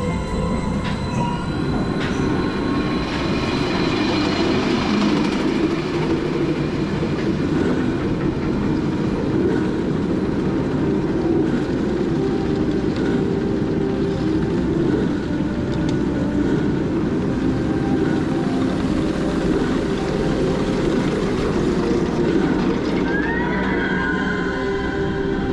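A suspended roller coaster train running on its steel track as it leaves the station and climbs the lift hill, heard from on board as a steady, continuous rolling noise.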